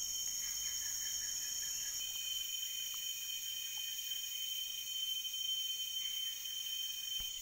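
Chorus of tropical forest insects: several high-pitched buzzing trills held steady and overlapping, with a faint, rapidly pulsing call during the first two seconds.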